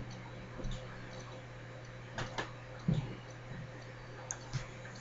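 Quiet room tone: a steady low electrical hum, with a few faint, scattered clicks and knocks.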